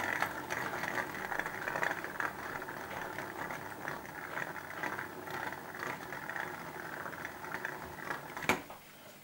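A Beyblade Zero G top, Samurai Ifrit, spinning in a plastic Zero G stadium, making a steady grinding rattle of many small clicks as its tip runs over the stadium floor. A single sharp clack about eight and a half seconds in marks it stopping, and the rattle ends there.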